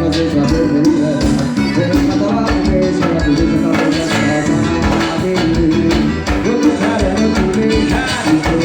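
A forró song playing: a singer over a band with a steady beat.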